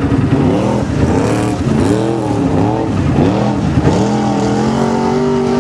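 ATV engine revving up and down again and again under load as it pushes through deep muddy water, then holding a steadier, higher pitch near the end.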